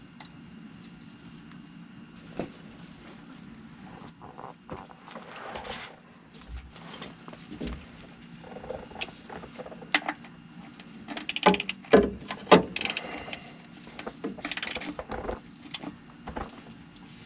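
Ratchet and socket clicking in short runs as the engine oil pan drain plug is tightened, after a few scattered small metal clicks and taps while the plug is threaded in by hand.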